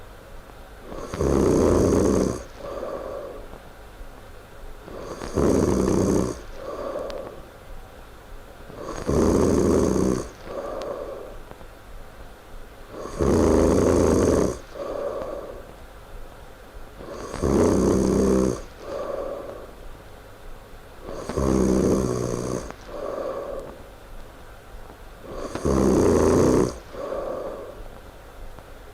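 A sleeping person snoring loudly in a steady rhythm, one loud snore about every four seconds, each followed by a shorter, softer sound.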